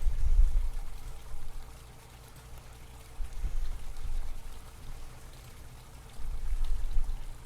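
Low rumbling noise on the microphone that swells three times, over a faint steady hum.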